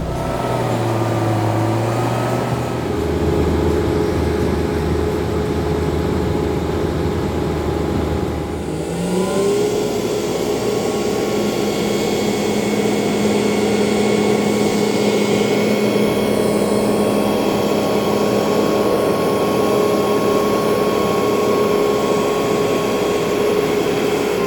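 Heavy engine running steadily, its pitch rising about nine seconds in and then holding at the higher speed.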